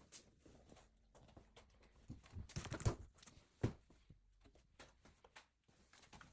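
Quiet handling noises with scattered light clicks. A short run of knocks and rustling comes about two and a half seconds in, and one sharp knock about a second later.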